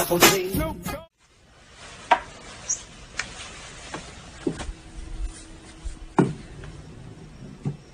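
Hip-hop music that cuts off about a second in, followed by a handful of sharp, scattered clicks and knocks of pool balls and cue over quiet room noise, the loudest about six seconds in.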